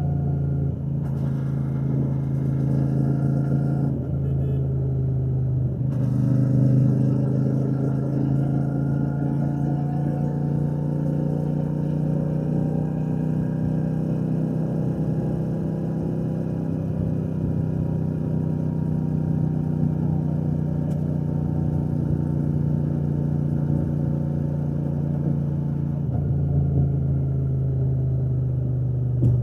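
Royal Enfield Shotgun 650's 650 cc parallel-twin engine and exhaust running steadily under way, its note drifting gently up and down in pitch.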